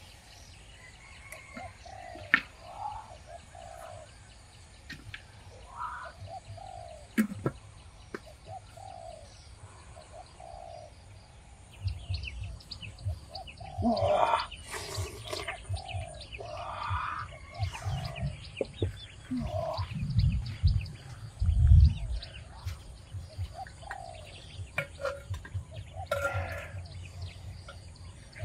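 Birds calling, one short note repeated about every second or so. From about halfway through, knocks and rustling handling noises join in, with the loudest thumps near the middle and a little after two-thirds of the way.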